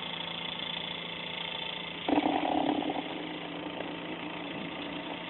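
Small 12-volt DC motor spinning a magnet flywheel rotor past a generator coil, running steadily with a hum. About two seconds in, a louder, rougher sound rises for about a second, then the steady running carries on.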